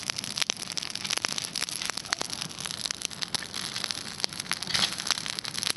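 Campfire crackling: irregular sharp snaps and pops over a low hiss.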